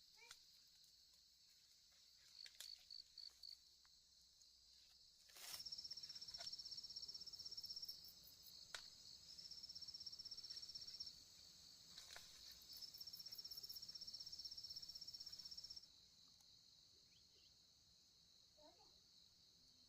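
Insects trilling in three runs of a few seconds each, a fast even high-pitched pulsing over a steady high hiss of other insects, with a few sharp clicks in between.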